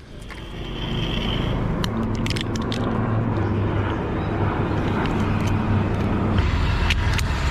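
An engine starts running about half a second in and keeps a steady hum, with several sharp clicks over the first few seconds.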